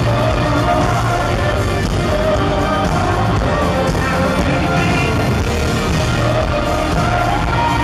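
Live rock band playing at full volume: electric guitar, drums and bass, with a sung lead vocal over them.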